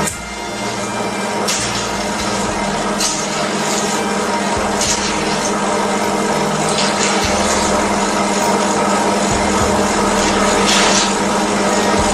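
Hydro-oxygen facial machine's pump motor running with a steady hum, with short swells of hiss every second or two.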